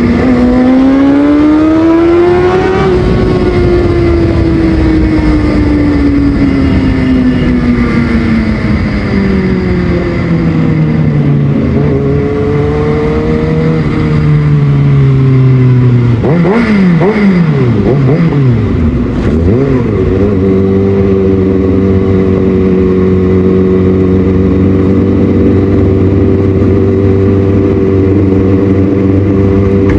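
Kawasaki ZX-6R inline-four with a Yoshimura exhaust being ridden. It accelerates over the first few seconds, then its note falls slowly as the bike slows. Just past halfway come several quick throttle blips, and then it holds a steady note.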